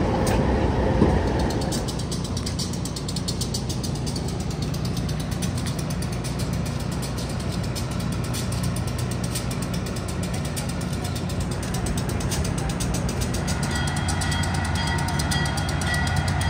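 Diesel locomotive engine running steadily, a low, even rumble. Steady tones come in about three-quarters of the way through.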